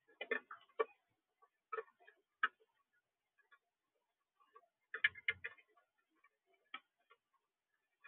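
Irregular small clicks and taps from a northern cardinal feeding at a plastic tray feeder, its beak cracking seeds and knocking on the tray, with a quick cluster of clicks about five seconds in.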